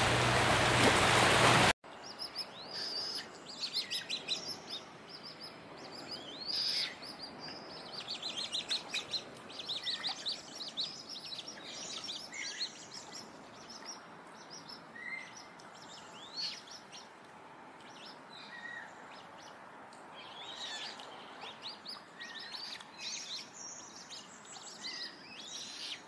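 A loud rushing noise cuts off abruptly about two seconds in. After that, several birds chirp and sing in a busy chorus of quick, high chirps and short sweeping notes.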